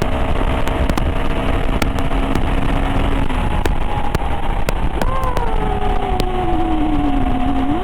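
KTM 390 Adventure's single-cylinder engine running at highway speed under heavy wind rush. The engine note holds steady for about three seconds and then drops. About five seconds in it rises sharply, falls slowly for a couple of seconds, and rises again near the end as the throttle changes.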